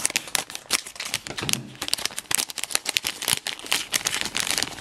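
Metallic foil My Little Pony blind bag crinkling in the hands: a rapid, irregular crackle of the foil.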